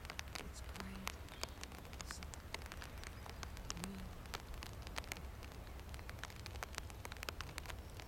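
Faint outdoor ambience: a steady low rumble with many light, irregular crackles scattered throughout.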